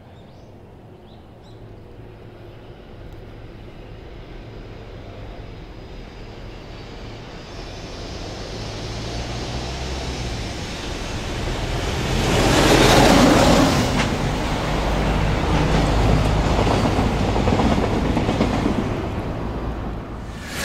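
Freight train hauled by an electric locomotive approaching out of a tunnel. Its low rumble of wheels on rail grows steadily louder and is loudest about thirteen seconds in, then carries on loud as the wagons run past.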